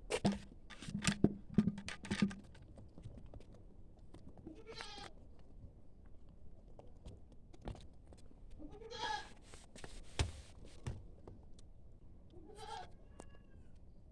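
A run of loud knocks and clatter in the first two seconds, then goats bleating: three separate wavering calls a few seconds apart.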